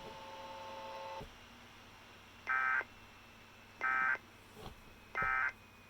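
Emergency Alert System end-of-message data bursts: three short, identical bursts of screechy digital tones about 1.3 seconds apart, following a steady tone that holds for about the first second and then cuts off.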